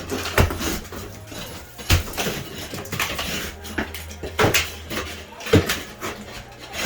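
A few sharp knocks and clatters, spaced irregularly about a second or more apart, over a steady low hum.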